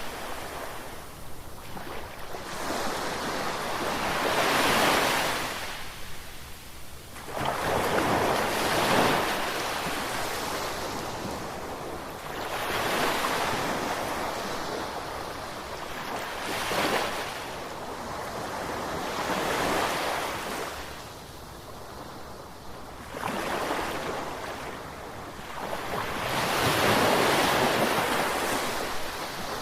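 Ocean surf: waves breaking and washing up, the rush swelling and fading again every three to four seconds.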